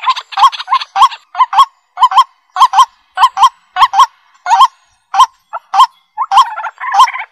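Birds calling: a run of short, quick calls, several a second, with more than one bird at once at the start. The calls thin out in the middle and thicken again near the end.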